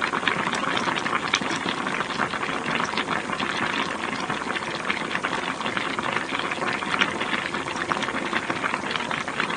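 Food sizzling and bubbling in a cooking pan: a steady, dense crackle of many small pops.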